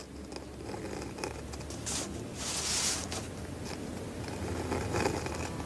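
A pen scratching across paper in short drawing strokes, loudest about two and a half to three seconds in.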